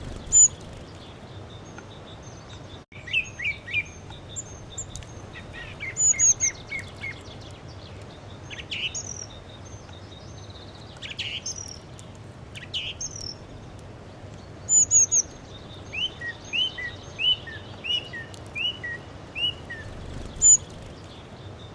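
Songbirds chirping and calling: short rising notes, many in quick runs of three to six, against a steady low background hiss.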